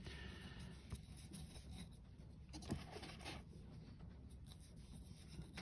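Faint scratchy brushing of a stiff, cut-down makeup brush dabbing a pigment wash onto a model's gun barrels, with a couple of light taps.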